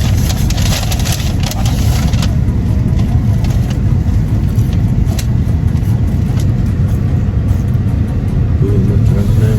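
Steady low rumble of a car driving, heard from inside the cabin, with a few light clicks in the first couple of seconds.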